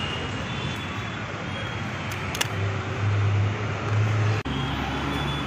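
Steady city street noise from road traffic, with a low engine hum that grows louder in the middle and drops away abruptly near the end. There is a single light click about two and a half seconds in.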